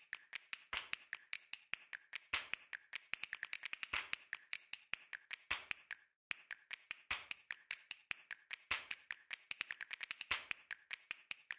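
A rapid, irregular run of sharp clicks and taps, several a second, with a brief break about six seconds in.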